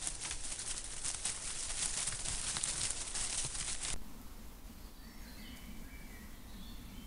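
Dense crackling rustle of dry leaf litter right by a trail camera as an animal moves through it. About four seconds in it cuts off abruptly to quieter woodland, with faint short bird chirps.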